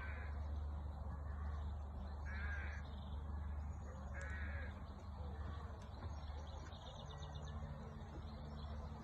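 A bird giving harsh, caw-like calls: three clear calls about two seconds apart, then fainter ones, over a steady low rumble.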